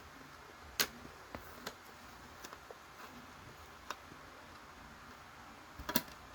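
Scattered plastic clicks and taps from handling a smoke alarm and its mounting bracket: a sharp click about a second in, a few lighter ticks, and a quick cluster of clicks near the end.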